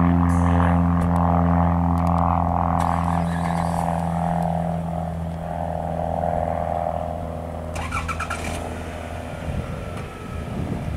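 Piper Cherokee's piston engine and propeller droning at takeoff-climb power, a steady low hum of even pitch that slowly fades as the plane climbs away.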